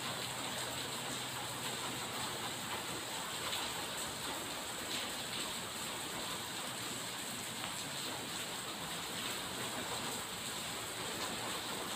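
Steady rain falling, an even, continuous hiss.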